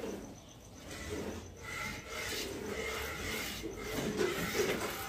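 Water buffalo being milked by hand into a steel pail: repeated squirts of milk hitting the pail, a rasping hiss with each pull of the teats.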